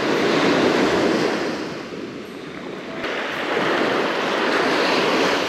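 Small surf waves breaking and washing up on a sandy beach, as a steady rush that eases off about two seconds in and swells again a second later.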